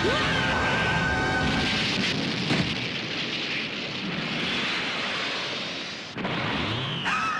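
Anime battle sound effects: a long, rumbling blast of noise, with a fresh sudden blast starting about six seconds in.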